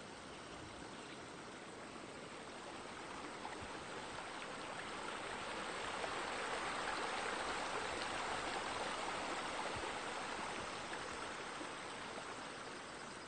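Steady splashing of water spilling from spouts in a stone wall into a swimming pool, growing louder toward the middle and fading again near the end.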